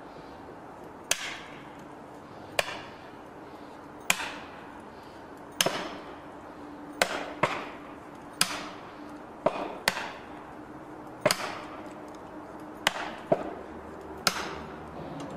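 A hammer striking felling wedges driven into the cut of a large tree trunk, about a dozen sharp blows at an even pace of roughly one every second and a half, a few coming in quick pairs, each with a short ringing trail. The wedges are being driven to lift the trunk and tip the tree.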